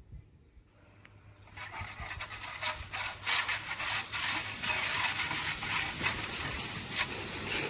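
Pressure washer spraying water: a loud, dense hiss of spray that comes in about a second and a half in and keeps going, flickering, over a steady low motor hum.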